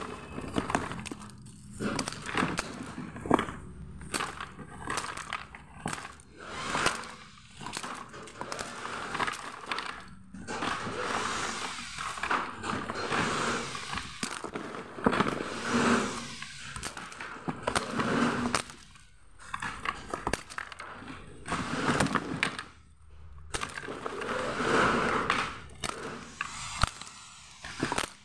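Cardboard box and packaging being opened by hand: irregular bursts of rustling, crackling and tearing, with scattered sharp clicks and knocks.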